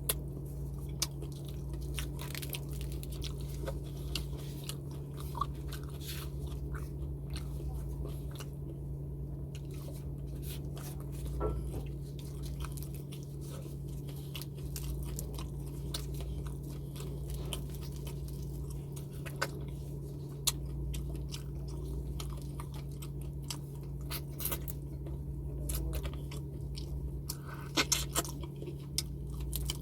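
Close-miked chewing and biting of food, with many short crisp crunches over a steady low hum; a cluster of louder crunches comes near the end.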